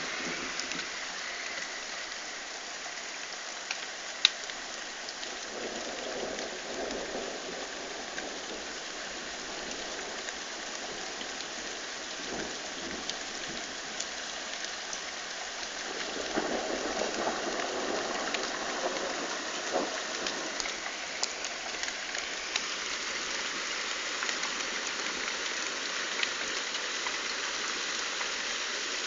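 Heavy rain and hail falling steadily, dotted with small impact ticks and one sharp tick about four seconds in. Thunder rumbles twice, about five and sixteen seconds in.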